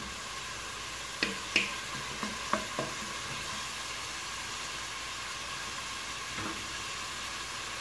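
Chopped red onion sizzling steadily in hot oil in a pot as it is sautéed until soft. A few light taps of a wooden spoon against the pot come in the first three seconds.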